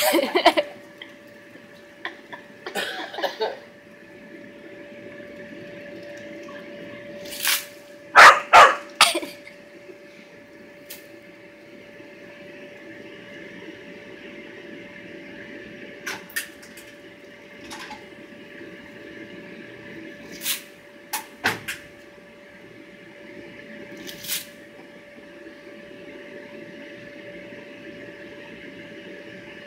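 The electric blower that keeps an inflatable water slide inflated, running as a steady drone with a constant tone. A few short, sharp sounds break in over it, loudest in a quick run of three about eight seconds in.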